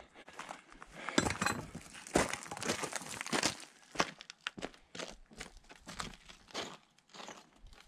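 Footsteps crunching on loose stones and gravel, irregular and growing fainter as the walker moves away.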